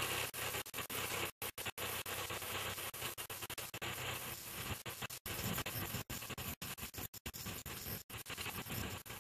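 Tractor and its tractor-drawn reaper-binder cutting and binding wheat, heard as a harsh, crackling noise with frequent brief dropouts.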